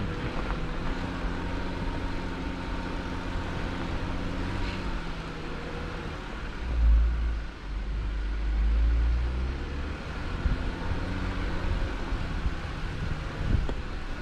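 Vehicle engine running steadily at low speed under a rumble, with a louder low surge partway through and a few short knocks.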